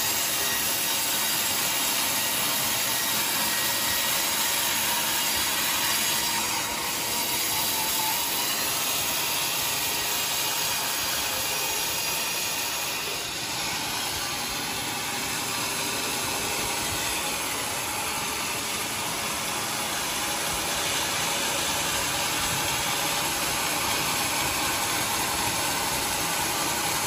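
Vertical band sawmill running steadily as its blade cuts through a large teak log, with a slight dip in level about halfway through.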